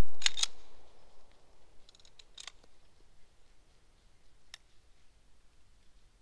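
The echo of a handgun shot, fired just before, dying away over about a second. A few sharp clicks follow.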